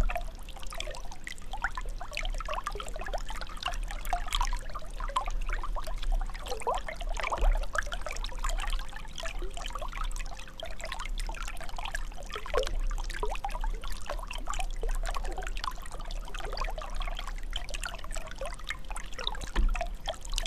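Water trickling and gurgling, with a dense, irregular patter of small bubbling and dripping blips over a steady low rumble.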